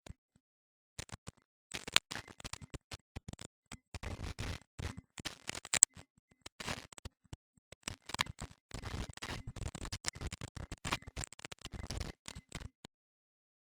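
A deer feeding on wild apples close to the microphone: irregular crunching and rustling clicks in clusters, with a few sharper cracks around the middle and dead-silent gaps between the clusters.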